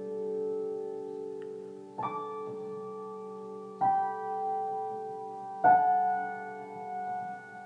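Piano played slowly and softly: held chords ringing and fading, with a new chord struck about every two seconds, three times.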